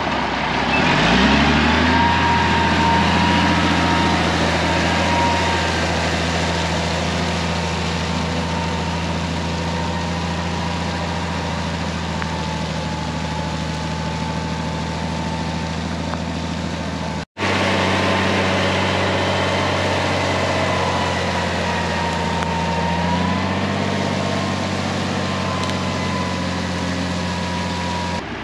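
Old Ford water truck's engine running under load as the truck drives along spraying water. The engine pitch rises as it pulls away about a second in, and again about two-thirds of the way through.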